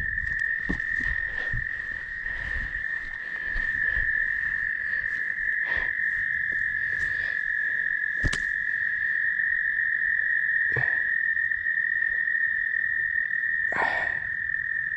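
A steady, unbroken high trilling chorus of frogs at night, holding one pitch throughout. A few short knocks sound over it, near the middle and towards the end.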